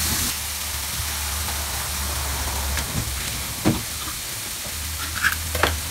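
Bacon strips sizzling on a hot ridged grill pan, a steady frying hiss, with a few short clicks about two-thirds of the way through and near the end.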